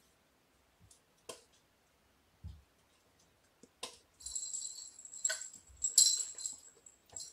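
Small jingle bell in a cat toy ball ringing as the ball is shaken and rolled, starting about four seconds in after a few light taps and clicks.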